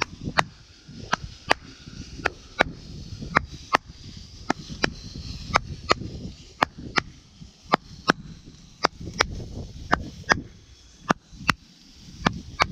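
Footsteps in a walking rhythm, a sharp click at each step, about three a second in uneven pairs, over a low rumble.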